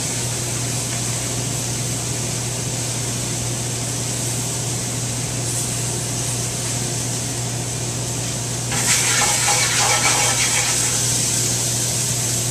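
Steady rushing noise and low hum of a commercial kitchen's gas range and ventilation. About nine seconds in, a loud crackling sizzle of vegetables in a hot sauté pan over a gas flame rises for about two seconds, then settles back.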